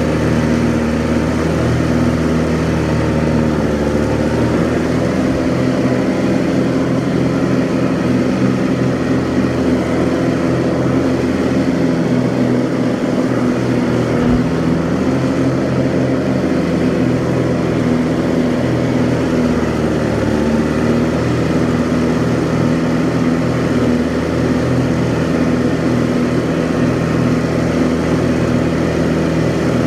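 Kubota G6200H diesel garden tractor running steadily while mowing tall grass, its pitch sagging briefly a couple of times as it takes on load.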